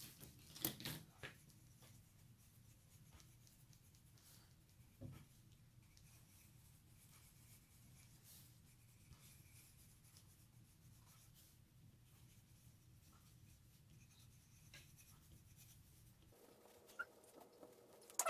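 Faint scratching of coloured pencils colouring on paper, with a few soft taps.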